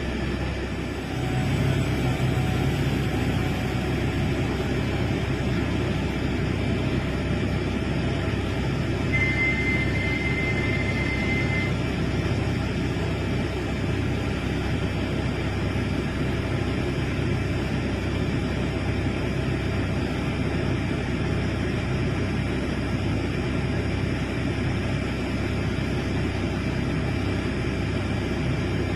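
Large excavator's diesel engine running steadily under load, a low rumble with an even pulse. A short high steady tone sounds for about two seconds around nine seconds in.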